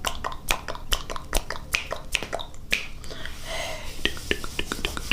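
Close-miked ASMR mouth clicks: sharp tongue and lip clicks at an uneven pace of two or three a second, with a brief hissy stretch a little past halfway, then quicker clicking near the end.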